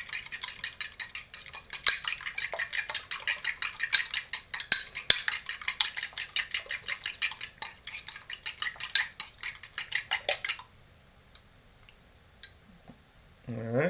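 A fork whisking beaten eggs, corn oil and yellow food colouring in a ceramic bowl: fast, rhythmic clinking of metal against the bowl, several strokes a second, which stops about ten and a half seconds in.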